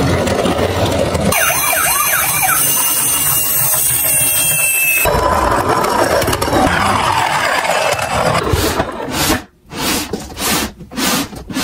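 Electronic siren sounds from battery-powered toy emergency vehicles: warbling wails that switch abruptly from one siren to another. In the last few seconds the sound cuts out and back in several times.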